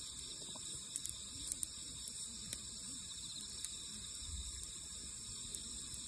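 Steady high chorus of night insects trilling, with a few short sharp crackles and pops from the wood fire.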